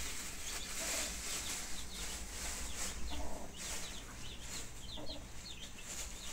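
Chickens clucking a few times, with many short high-pitched chirps scattered throughout.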